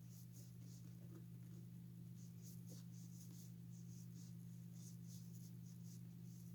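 Faint, irregular scratchy rubbing strokes as a helmet is scrubbed and polished clean, over a steady low hum.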